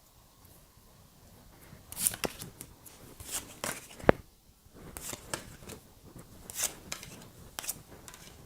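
Tarot cards being shuffled and cut by hand: from about two seconds in, an uneven run of crisp card swishes and flicks, with one sharp snap about four seconds in.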